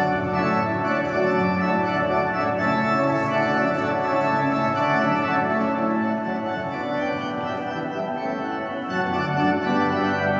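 Salt Lake Tabernacle pipe organ playing full, sustained chords over a deep pedal bass, with the harmony shifting slowly.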